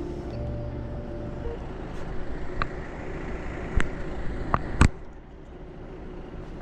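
Intro music tailing off, then steady outdoor background noise broken by a few sharp clicks and knocks, the loudest a single knock about five seconds in.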